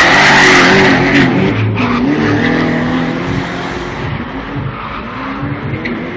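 Drift car's engine revving hard with its tyres squealing through a smoky sideways slide. Loudest in the first second, then fading as the car moves away.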